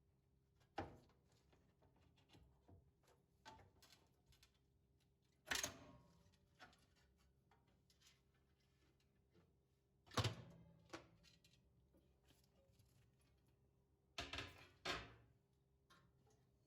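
Scattered knocks and clunks of household objects being handled and set down, the loudest about five and a half seconds in, about ten seconds in, and a pair near the end.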